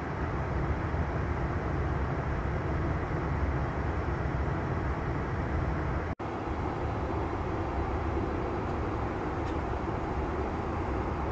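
Steady cabin noise of a Bombardier CRJ900 regional jet in flight: a constant low rumble with air rush from the engines and slipstream. It cuts out for an instant about six seconds in.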